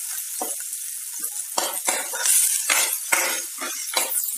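Sliced onions frying in hot oil in a kadai, sizzling steadily, while they are stirred and the utensil scrapes and knocks against the pan several times at an uneven pace.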